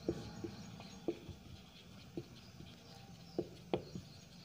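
Marker pen writing on a whiteboard: faint, with about seven short, sharp stroke sounds at irregular intervals.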